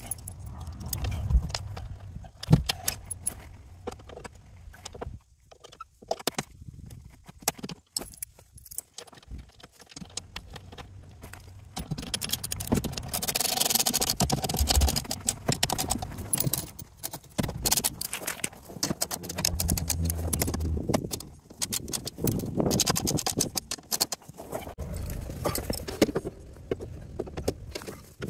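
Irregular metallic clinks, clicks and knocks of hand tools and bolts being worked on the underside of a UTV while a skid plate is fitted, with busier stretches of clatter around the middle.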